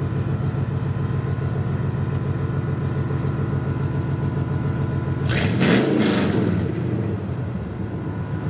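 2001 Ford F-150 engine on an open exhaust, with long-tube headers and no catalytic converters or mufflers, idling steadily. About five seconds in it is revved once, hard and loud, rising and falling in about a second, then drops back to idle.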